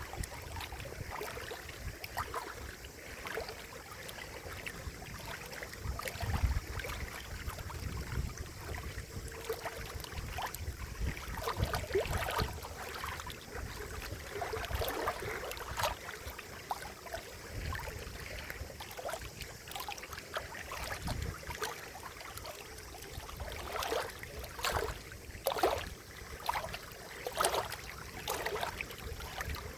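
Water gurgling and splashing with many irregular small plops over a steady low rumble, a few louder splashes near the end.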